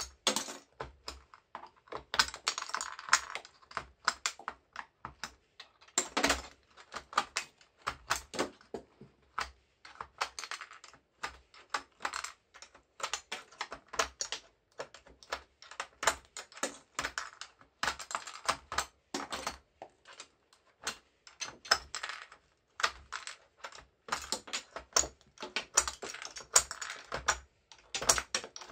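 Plastic keycaps being pried off a computer keyboard with a screwdriver: an irregular run of sharp clicks and snaps as caps pop free, with small clusters of plastic clatter as loose caps drop onto the table.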